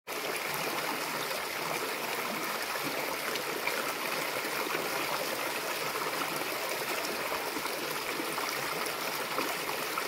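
Shallow creek water running over and between rocks, a steady trickling rush.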